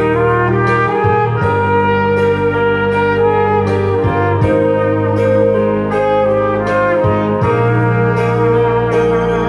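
Trumpet playing a slow, legato melody over a backing track of sustained low notes and a steady light beat.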